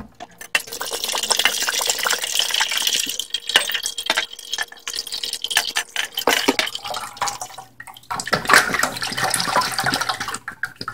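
Thick padek (fermented fish sauce) pouring out of upturned bottles and splashing into a large metal stock pot of liquid, in uneven splashy spurts that ease off briefly a couple of times.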